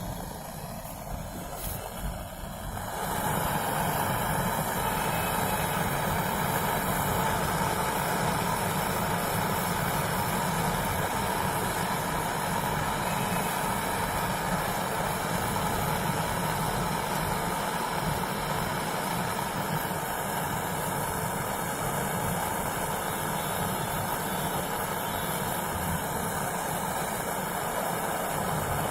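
A compressor running steadily to push solvent through a refrigerator coil during flushing. It comes up to full level about three seconds in.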